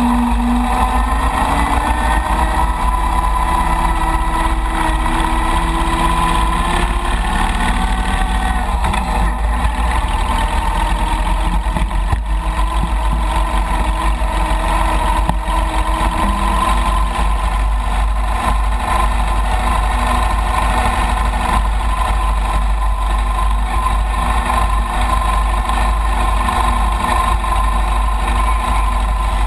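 Chang Jiang 750 sidecar motorcycle's side-valve flat-twin engine running under way. Its pitch rises and eases over the first several seconds, then holds steady, with a heavy low rumble of wind on the microphone.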